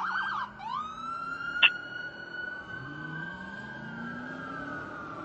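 Fire engine's electronic siren switching from a fast yelp to a slow wail that climbs, holds, then begins to sink. A single sharp click comes about a second and a half in, and the truck's engine rises in pitch near the end as it accelerates.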